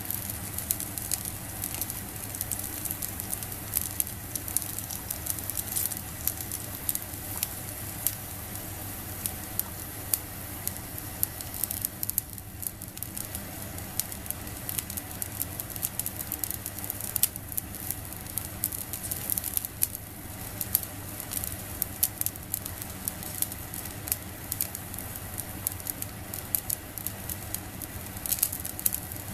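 Squid grilling on a wire net over a small solid-fuel fire, sizzling steadily with many quick pops and crackles.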